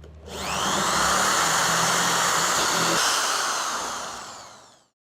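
Electric drill motor spinning up with a rising whine, running steadily, then winding down and fading out.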